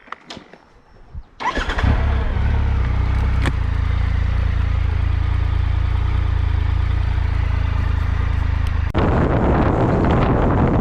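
Triumph Tiger 1200 inline-three motorcycle engine cranking and catching about a second and a half in, then idling steadily. About nine seconds in, wind rushing over the microphone takes over.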